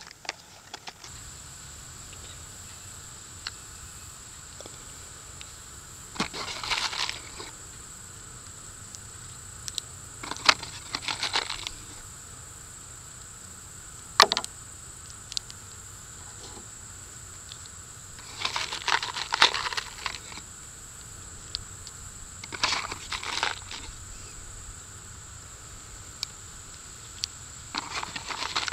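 Cartridges being taken from a cardboard box and pushed one by one into the cylinder of an H&R 926 break-action .22 LR revolver. Six short bursts of small metallic clicks and rattles come every few seconds, with one single sharp click about halfway through.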